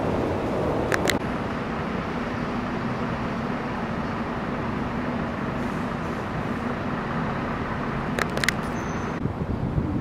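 Steady outdoor street background noise with a low, even hum, like distant traffic. Short sharp clicks come about a second in and twice more near the end.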